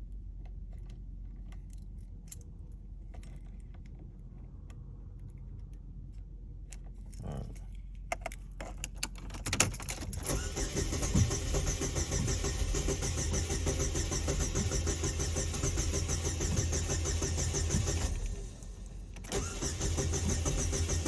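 Light clicks and handling noises, then about halfway through a car engine cranks and starts and runs steadily. Near the end the engine sound drops away for about a second and then comes back.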